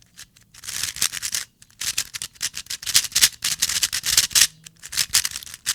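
Speed cube being turned fast: flurries of quick clacking as the plastic layers snap past each other, with short pauses between runs of turns. The turning is smooth and very fast.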